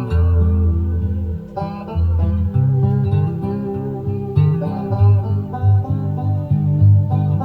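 Music played back from a cassette tape on a 1979 National Panasonic RS-612US stereo cassette deck during a playback sound test.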